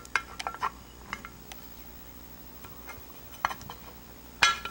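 Small metal parts of a phoroptor's support bracket and shaft clicking and clinking as they are handled and the shaft is worked loose, in scattered irregular taps, a quick cluster at the start and the loudest clack near the end.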